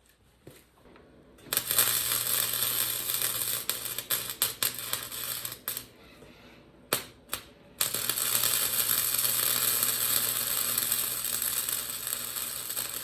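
Arc welding: a welding arc crackling and hissing in two long runs of about four and five seconds, with a steady low hum beneath, and a couple of brief strikes in the short stop between them.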